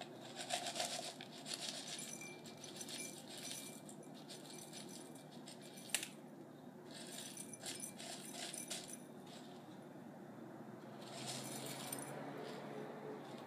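Dry granola rattling and pattering as it is poured and shaken from a glass jar into a drinking glass, in several short spells, with one sharp click about six seconds in.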